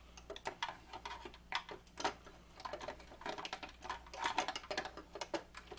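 Hard plastic parts clicking and knocking as a baby swing's plastic gearbox housing is handled and fitted back into its plastic base: a string of irregular light clicks, several a second.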